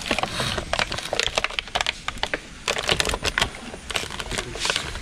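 Rapid, irregular clicks and clacks of small toy vehicles being handled and set down on a hard surface.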